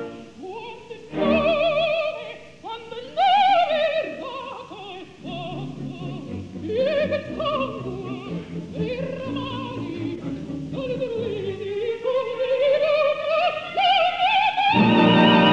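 Operatic soprano singing a slow, freely phrased line with wide vibrato over light orchestral accompaniment. About a second before the end the full orchestra comes in loudly.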